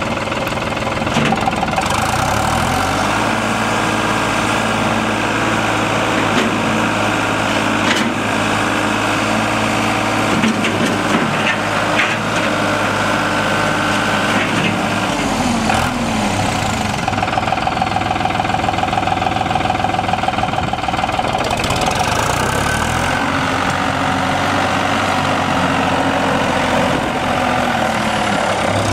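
New Holland TN75S tractor's diesel engine running just after starting: it revs up about three seconds in and holds at higher speed for around twelve seconds, drops back to idle, then revs and holds again for about five seconds before settling back down.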